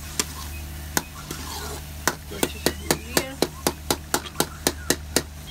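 Steel ladle knocking and scraping against a steel karahi as frying masala is stirred hard. There are a couple of single knocks, then a fast, regular run of sharp clanks about four a second from about two seconds in, over a faint sizzle.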